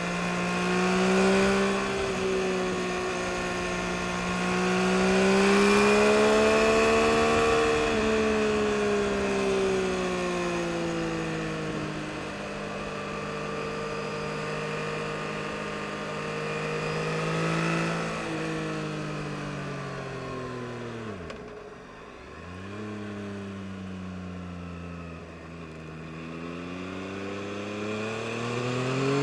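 2022 Yamaha MT-09 SP's inline three-cylinder engine under way, its pitch rising and falling with the throttle. About three-quarters of the way through the revs drop steeply to a low note, then climb again near the end.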